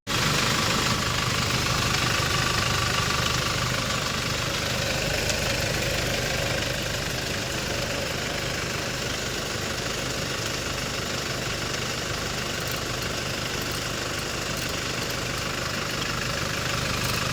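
Hyundai Starex CRDi diesel engine idling steadily, running again after its faulty crank sensor was replaced.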